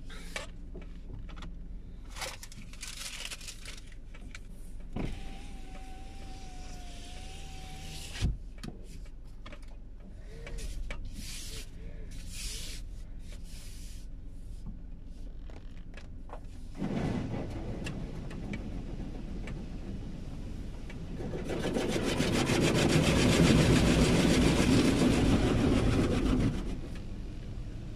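Gantry-type automatic car wash heard from inside the car. After a fairly quiet start with a few small clicks, the machine starts up a little past halfway with a steady noise. It then grows loud as water spray hits the car for about five seconds, and eases off near the end.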